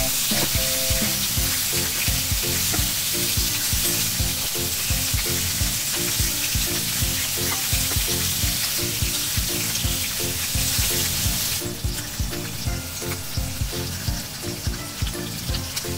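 Pork steaks sizzling as they sear in a hot, oiled cast-iron grill pan: a steady frying hiss that eases a little about three-quarters of the way through. Background music with a light beat plays underneath.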